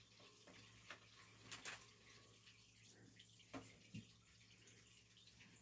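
Near silence: room tone with a few faint, scattered soft taps and clicks.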